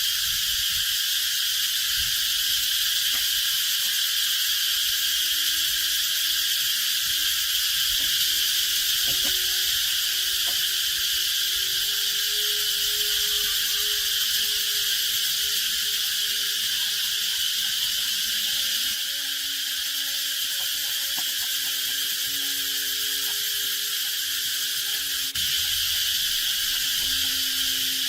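Steady, high-pitched chorus of insects, crickets or cicadas, unbroken throughout, with faint held low tones underneath.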